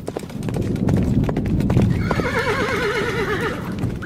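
A horse galloping, with fast hoofbeats throughout, and a horse whinnying in one long quavering neigh about two seconds in.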